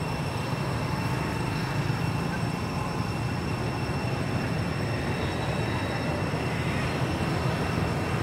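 A steady low rumble, unchanging throughout, with faint thin high-pitched tones held above it.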